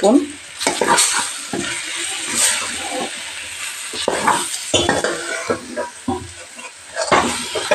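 Steel spoon stirring and scraping brinjals and ground masala around a stainless-steel kadai in irregular strokes, over the sizzle of the spices frying in oil.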